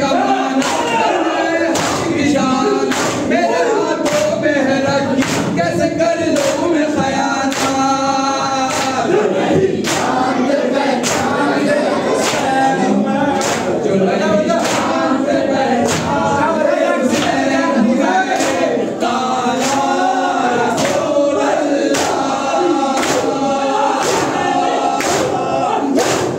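A crowd of men chanting a Muharram nauha in chorus, with their hands beating their chests in unison (matam) about one and a half times a second as a steady beat under the chant.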